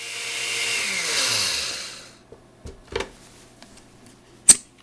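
Countertop blender grinding wheat kernels into flour, its motor tone falling as it winds down and stops about two seconds in. A few light knocks follow, then a sharp click near the end.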